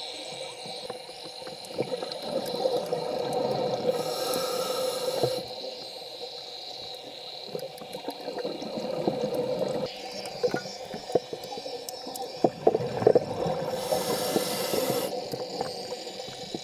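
Scuba diver breathing through a regulator underwater: a hissing inhale about four seconds in and another near the end, with exhaled bubbles crackling and gurgling between them. A steady hum runs underneath.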